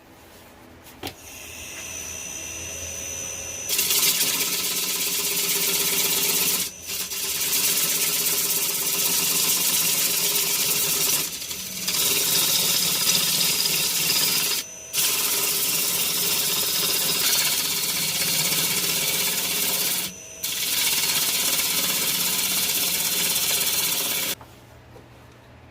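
Electric power tool motor starting about a second in, then running loud while working wood, with four brief drop-outs. It shuts off suddenly near the end.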